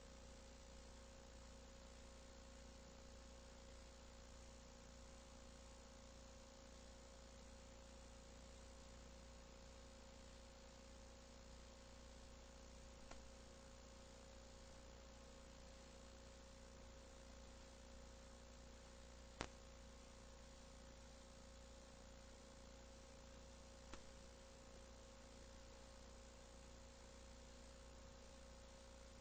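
Near silence: a steady electrical hum and hiss, broken by three short clicks, the loudest about two-thirds of the way through.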